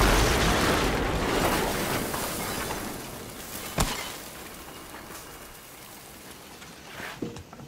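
Sound effect of a loud crash dying away: a noisy rumble fading steadily over several seconds, with a sharp crack about four seconds in and a couple of small knocks near the end.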